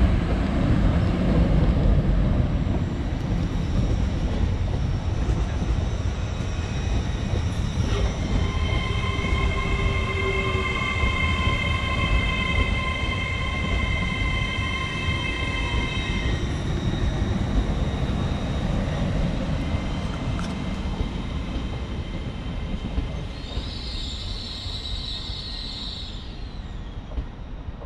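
Lumo Class 803 electric multiple unit passing close by with a steady rumble of wheels on rail. It is loudest in the first few seconds and fades toward the end as the train moves away. A high-pitched ringing whine is held for several seconds midway, with a shorter, higher one near the end.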